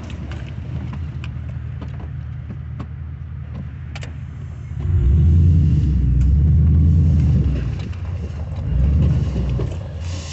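2005 2500HD pickup truck's engine running, heard from inside the cab, with a few faint clicks. It revs up for about three seconds starting about five seconds in, and again briefly near the end as the truck creeps forward.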